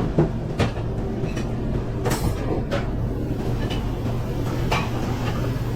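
Busy commercial kitchen line: a steady low drone under scattered clinks and knocks of pans and utensils, with a short hiss about two seconds in.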